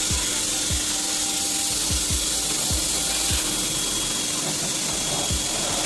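Kawasaki HPB-302 electric pressure washer running and spraying, a steady hiss, with background music carrying a deep kick-drum beat over it.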